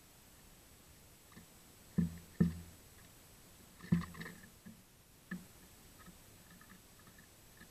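A Eurasian nuthatch pecking at fat-and-seed cake on a wooden rail: a few sharp knocks about two seconds in, again half a second later and near four seconds, with a lighter tap a little after five seconds.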